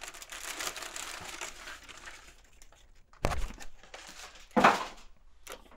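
Paper packing rustling and crinkling as newspaper wrapping and a model kit's instruction sheet are handled, with a soft thud about three seconds in and a louder rustle a second or so later.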